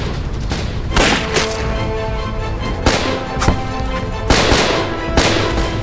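Scattered rifle shots, about six, roughly a second apart, over dramatic background music with held tones and a low rumble.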